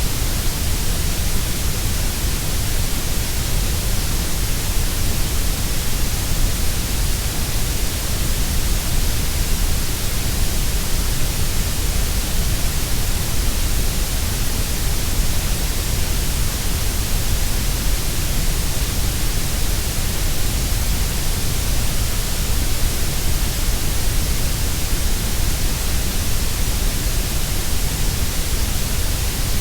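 Continuous synthetic grey noise: a steady, even hiss, fuller in the deep bass and the treble than in the middle range.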